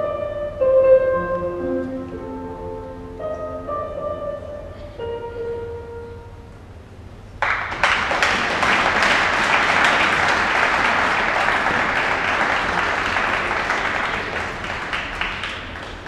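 Slow instrumental program music plays its last few sustained notes and dies away; then, about halfway through, the audience in the rink breaks into applause, louder than the music, which carries on steadily and eases off near the end.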